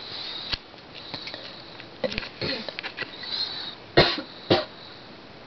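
Two short, sharp sniffs about four seconds in, half a second apart, with a faint high whistle of breath through the nose shortly before.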